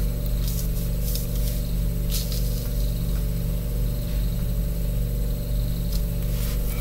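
Steady low hum of unchanging tones, with a couple of faint, brief rustles about two seconds in and near the end.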